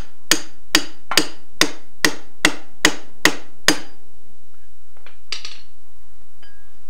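Hammer tapping a pickle fork (ball joint separator) wedged between a tie rod end and the steering bell crank of a 1943 Willys MB: about ten sharp, ringing metal-on-metal strikes at an even pace, roughly two and a half a second, stopping about four seconds in as the tie rod end breaks free. A faint brief clatter follows.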